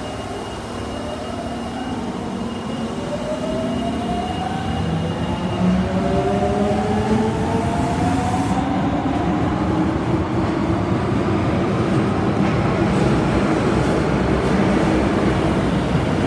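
Tanimachi Line subway train pulling away and gathering speed: its traction motors whine in several tones that rise together in pitch, over a rail and running noise that grows steadily louder.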